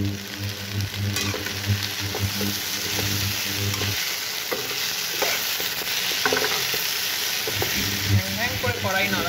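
Mixed vegetables and tomatoes frying with a sizzle in a metal kadai as a spatula stirs and scrapes through them, giving scattered knocks and scrapes against the pan. A steady low hum runs underneath, dropping out from about four seconds in until about seven and a half.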